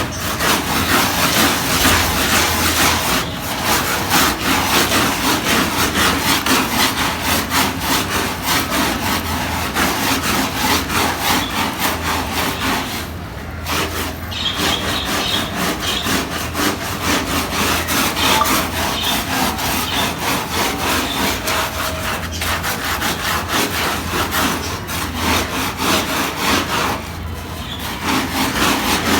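Brush scrubbing a soaked, heavily soiled carpet in quick rhythmic back-and-forth strokes, with a short pause about halfway through and another near the end.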